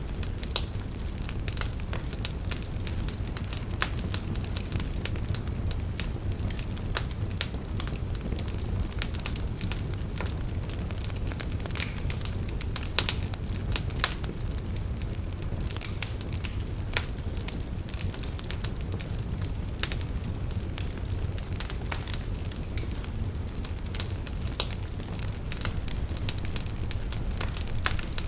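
Bonfire crackling steadily with dense small snaps and a few louder pops, over a constant low rumble from the flames.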